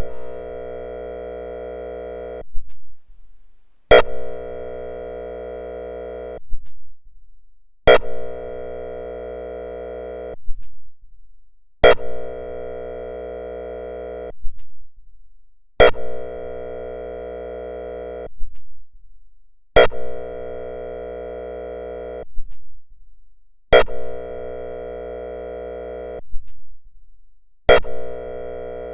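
Whelen ESC-864 electronic siren sounding its airhorn signal: a steady, buzzy horn blast of about two and a half seconds, repeated every four seconds, with eight blasts in all. Each blast starts with a sharp click and cuts off cleanly.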